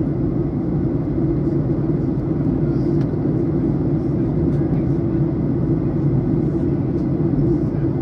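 Steady cabin noise of a Boeing 737 airliner in flight, heard from a seat over the wing: an even, low rumble of the turbofan engines and the airflow past the fuselage.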